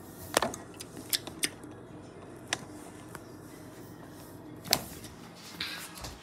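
Handling noise from a phone camera being picked up and moved: a few sharp clicks and knocks, the loudest about half a second in and again just before five seconds in, over a low steady hum.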